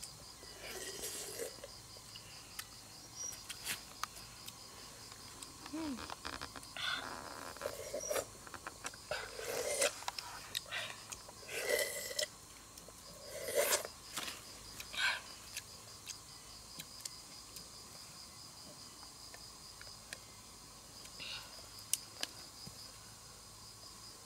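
Steady high trill of crickets, with short, irregular sounds of a person drinking juice straight from a hollowed-out watermelon, bunched in the first two-thirds.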